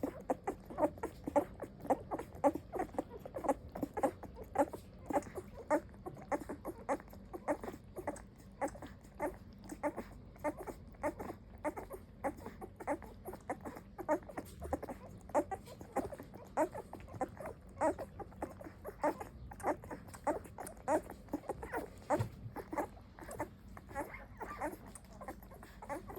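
Alabai (Central Asian Shepherd) puppies eating, with a steady run of quick wet lapping and chewing smacks, about two or three a second.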